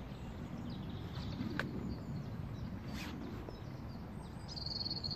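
Lakeside ambience: a steady low wind rumble with faint birdsong, including a short high trill near the end, and a couple of light clicks.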